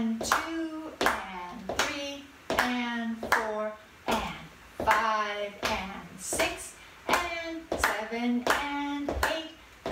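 Hand claps in a slow, even beat, about one every three-quarters of a second, marking the counts of an eight-count polka rhythm. A woman's voice counts the beats between the claps.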